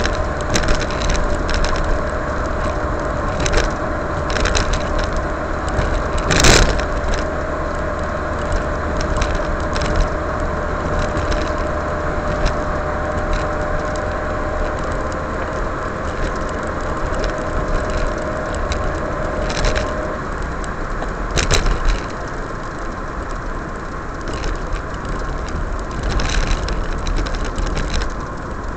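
Road and engine noise inside a moving car on a patched, rough road, with frequent clicks and rattles from the cabin and two loud knocks, one about six seconds in and another about two-thirds through. A steady whine runs under it and stops about two-thirds through.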